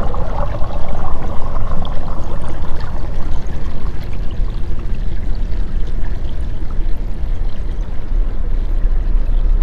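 Deep underwater ambience: a steady low rumble of water currents with a bubbling, gurgling wash that fades over the first couple of seconds, and faint scattered ticks.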